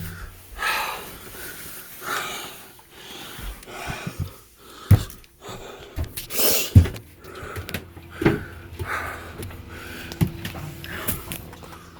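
Mallet knocking a mahogany plug down into an epoxied hole in a boat deck: about five sharp knocks, one to two seconds apart.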